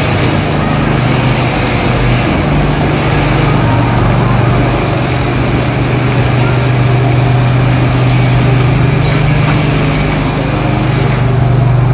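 Ride-on lawn mower engine running steadily with a constant low drone, alongside a string trimmer cutting tall grass.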